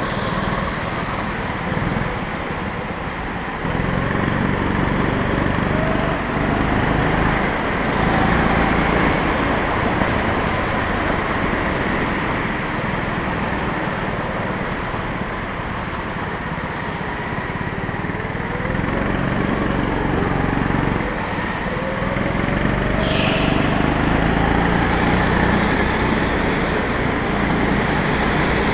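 Small petrol engine of a rental go-kart heard from on board while driving a lap, its pitch rising and falling as the throttle opens and closes through the corners, with steady rumble from the kart. A brief high squeal comes about three-quarters of the way through.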